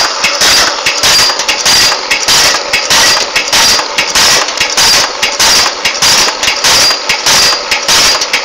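Camphor tablet making machine running at speed, its punches pressing camphor tablets in a loud, rhythmic clatter that repeats about twice a second.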